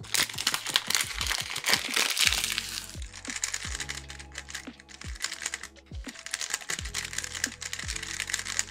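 A new HaiTun Waverider V1 Standard 3x3 speed cube being turned fast by hand, giving a rapid plastic clacking that is densest in the first two seconds or so. Background music with a steady beat plays throughout.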